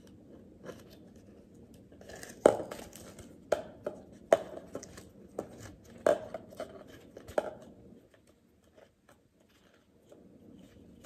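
A thin clear plastic cup handled while string is threaded through its holes and knotted: irregular sharp plastic clicks and crackles, about half a dozen louder ones, between about two and seven and a half seconds in, then almost quiet.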